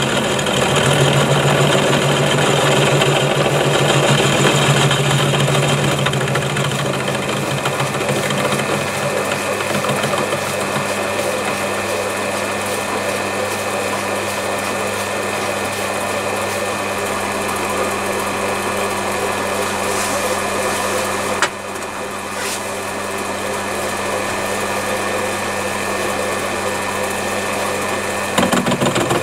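Home-made milling attachment driven by a 200 W treadmill DC motor, its 12 mm HSS three-flute end mill cutting hard steel bar on a Myford ML7 lathe: a steady motor and spindle sound with the noise of the cut. There is a short click about two-thirds of the way through, and the sound changes shortly before the end.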